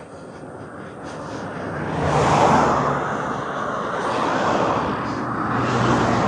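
Motor traffic passing close to a road bicycle. The sound swells to a peak about two and a half seconds in and again near the end.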